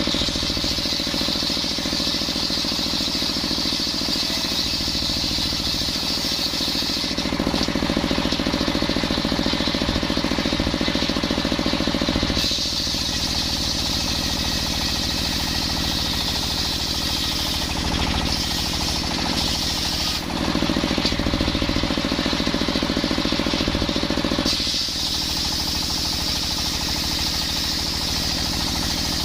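Engine-driven circular sawmill running steadily while its blade rips coconut wood into beams. A high cutting hiss rises and falls in stretches of several seconds as the log is fed, over the constant pulsing of the machine.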